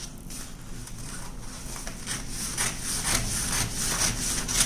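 Scissors cutting through folded paper pattern, a run of repeated snips about two a second that grow a little louder towards the end.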